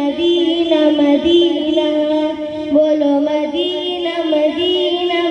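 A boy singing a naat, an Urdu devotional song in praise of the Prophet, holding long melodic notes that slide and step between pitches.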